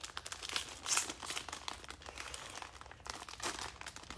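Foil wrapper of a Panini Prizm football card pack crinkling irregularly as it is handled and torn open by hand, loudest about a second in.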